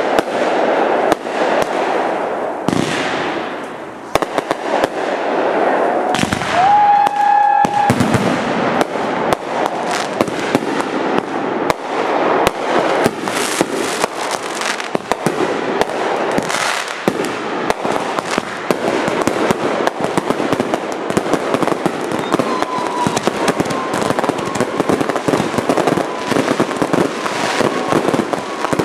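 Aerial fireworks display: a dense, continuous run of bangs and crackles from shells bursting, with a brief high whistle about seven seconds in.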